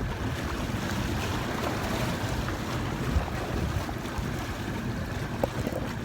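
Sea waves washing and breaking against rocks, with wind buffeting the microphone.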